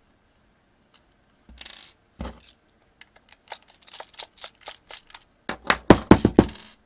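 Small Phillips screws being backed out of a plastic tool housing with a precision screwdriver: a quick run of light ticks, then a loud cluster of sharp clacks near the end as a small screw and the metal screwdriver clatter onto a wooden desk.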